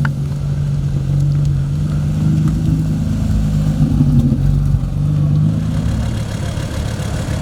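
Car engine idling with a steady low rumble, swelling slightly a little past halfway.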